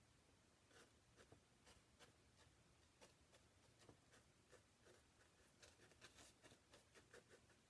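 Faint scratchy strokes of a stiff-bristled chip brush laying oil paint onto a small painting panel. The short, irregular dabs come quicker in the last couple of seconds.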